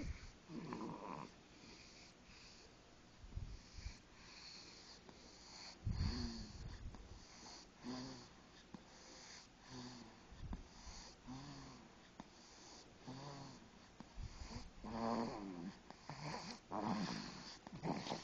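A sleeping pet snoring softly in slow, regular breaths, about one snore every two seconds, some with a wheezy, whistling pitch.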